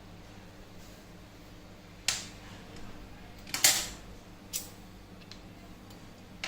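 Spoons clicking and clacking as they are pushed into and handled in a cable clip's channels: four short sharp clicks, the loudest about three and a half seconds in.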